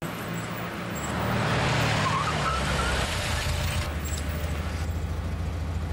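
A car driving up on a wet street: engine and the hiss of tyres on wet tarmac, swelling about a second in, with a brief squeal about two seconds in.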